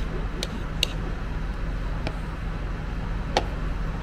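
Steady low rumble of road traffic, with a few sharp clinks of a metal spoon and chopsticks against a ceramic plate as noodles are tossed, the loudest near the end.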